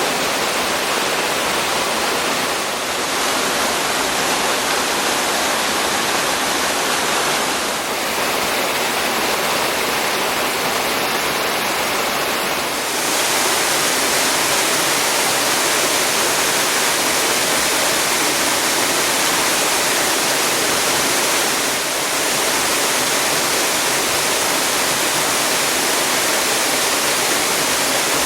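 Waterfall rushing into a pool: a loud, steady roar of falling water, its level and tone shifting slightly a few times.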